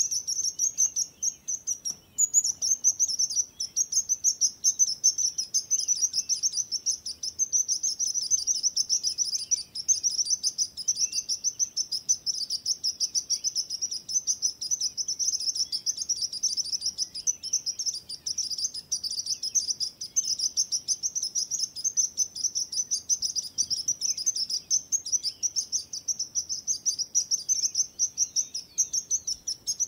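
Sparrow singing: a rapid, continuous stream of high chirps, with a brief break about two seconds in.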